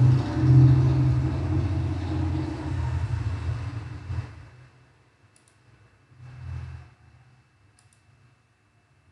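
A low, steady rumble that dies away about four seconds in and swells up again briefly a couple of seconds later. A couple of faint clicks, like a computer mouse, can be heard in the quieter part.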